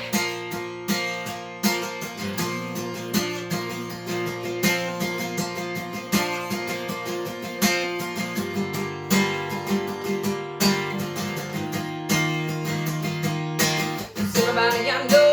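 Acoustic guitar strummed in a steady rhythm, with no singing, in an instrumental passage of a song; the chord changes about halfway through.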